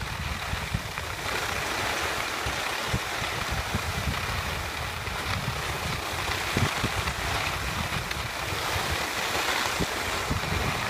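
Steady hiss of skis sliding over groomed snow, mixed with uneven wind rumble buffeting a phone microphone while moving downhill.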